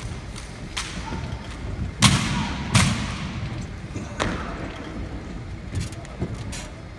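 Sharp knocks and thuds from an armed exhibition drill platoon working drill rifles: rifles slapped and struck and heels stomped on a concrete floor, echoing in a large hall. The two loudest come about two seconds in and under a second later, with lighter knocks after.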